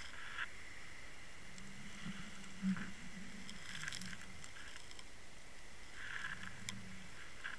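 Underwater sound picked up by a Water Wolf line camera on the seabed: a muffled rumble of moving water, with a few ticks and knocks, the sharpest about three seconds in, as the camera shifts against the sand and shingle.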